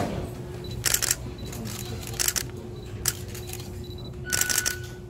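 Camera shutters clicking: a few single shots, then a quick run of several near the end, over a steady hum.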